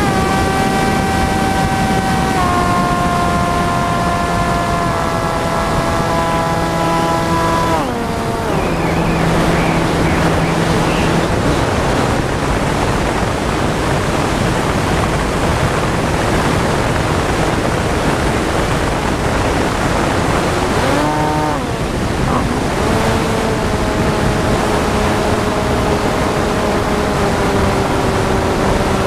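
Brushless electric motor and propeller of a TBS Caipirinha flying wing, heard from its onboard camera over loud wind rush: a whine whose pitch steps down with the throttle, drops out about eight seconds in leaving only wind noise while it glides, then comes back about two-thirds of the way through and falls in pitch at the very end as it comes down to land.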